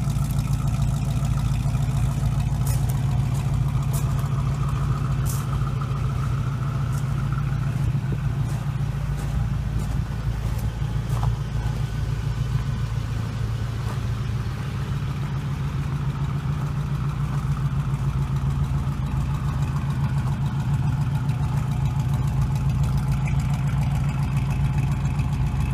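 Chevrolet Corvette C1's V8 engine idling steadily with an even low rumble, a few faint clicks in the first few seconds.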